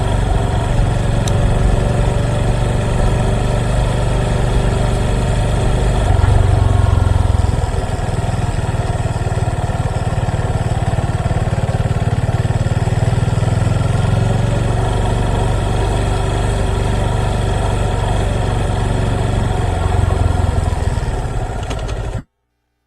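Motorcycle engine running steadily at a low, even pitch, a little louder for a moment about six seconds in; the sound cuts off abruptly near the end.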